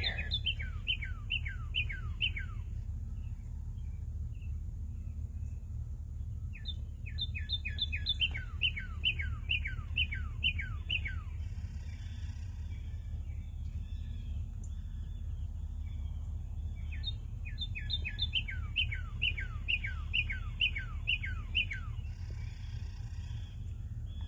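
A songbird singing three runs of clear whistled notes, each note sliding down in pitch, about ten notes a run. A second bird adds faint, very high notes, and a steady low rumble sits under everything.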